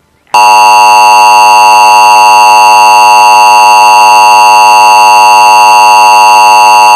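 Emergency Alert System attention signal: a loud, steady two-tone alert beginning abruptly about a third of a second in and holding unchanged. It is the warning tone that announces an emergency alert broadcast.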